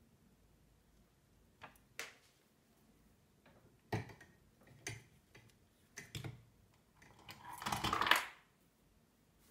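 Soldering tools and small parts handled and set down on a wooden workbench: scattered light knocks and clicks, then a longer, louder rustling scrape near the end.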